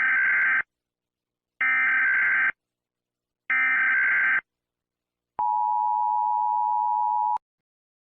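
Emergency Alert System SAME header: three identical short bursts of modem-like data tones, each just under a second, evenly spaced. These are followed by the two-tone EAS attention signal, a steady dual tone lasting about two seconds that cuts off abruptly, marking the start of an emergency alert broadcast.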